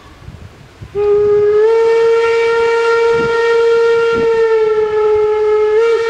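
Steam whistle of the BR 52 steam locomotive blown in one long, steady blast of about five seconds, rising slightly in pitch just after it starts. It is the warning for the unguarded level crossing.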